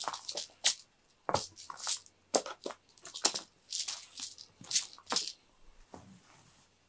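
Cat teaser wand's ribbon streamers being whipped and dragged across foam floor mats: a quick irregular run of rustling swishes that stops about five and a half seconds in.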